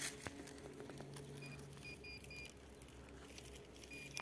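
Faint metal detector audio during sweeping: a low tone that comes and goes, with a few short high beeps in the middle and near the end.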